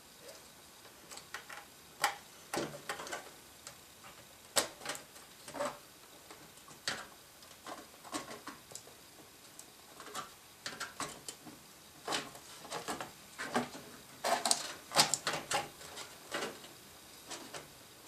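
Irregular light clicks and taps as a motherboard is set down into a metal PC case and lined up with the I/O shield, with power cables being pushed aside. The clicks come thicker for a couple of seconds near the end.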